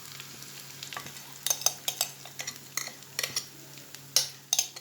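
Tuna-and-egg mixture sizzling in a frying pan on top of fried onion, with a utensil clicking and scraping against the pan from about a second and a half in.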